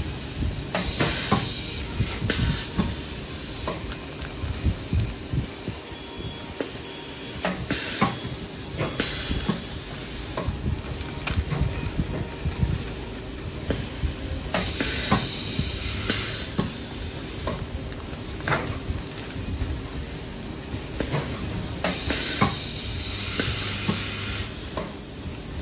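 Pneumatic valve-applicator press for coffee bags at work: four hisses of air, each a second or two long, come about seven seconds apart as the press cycles. Clicks and the crinkle of foil-laminated bags being handled fall between them, over a steady machine hum.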